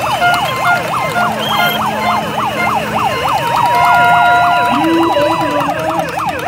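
Several siren noisemakers wailing at once: fast rising-and-falling sweeps, about four a second, overlapping, with steady held tones cutting in and out on top.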